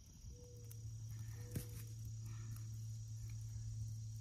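Outdoor summer ambience: insects, likely crickets, trilling steadily at a high pitch over a steady low hum. A few short, flat, low notes sound in the first couple of seconds, and there is a single sharp click about a second and a half in.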